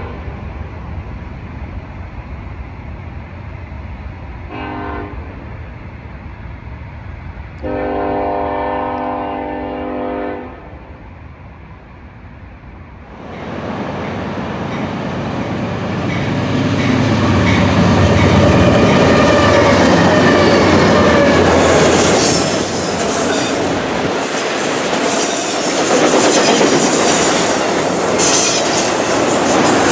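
A locomotive horn sounds: a blast that ends just after the start, a short blast about four seconds in, and a longer, louder one about eight seconds in, over a low rumble. About thirteen seconds in the sound changes abruptly to a freight train passing close: the BNSF C44-9W diesel locomotives rumble by, loudest a few seconds later, then autorack cars roll past with wheel clatter and squealing.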